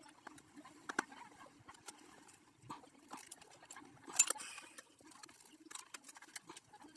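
Scattered light clicks and knocks of tools and parts being handled during workshop assembly, with a short louder clatter about four seconds in.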